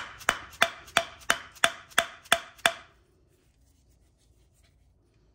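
Sharp, evenly spaced taps on a Suzuki LTZ400 water pump, about three a second, each with a short metallic ring, stopping about three seconds in: knocking at the pump to try to separate its halves.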